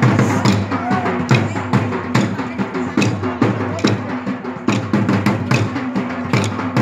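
Dandiya raas: wooden dandiya sticks clacking together in time over loud festive music with a steady drum beat.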